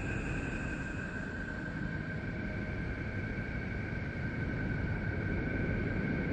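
Voyager-derived 'sound of Neptune', spacecraft radio data converted to audio: a steady, dense rumbling hiss with two held high whistling tones over it, the tones sliding slightly lower in pitch early on.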